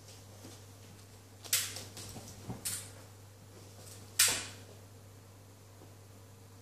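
A few short scuffing and rustling noises from a husky puppy at play on the floor and with a blanket, the loudest about four seconds in.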